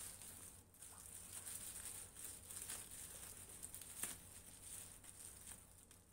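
Faint crinkling of plastic bubble wrap and snips of scissors cutting through it, with a sharp click about four seconds in.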